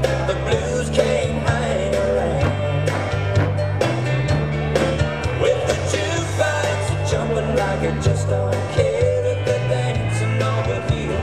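Country-style rock-and-roll dance music with guitar and a steady drum beat, played for line dancing.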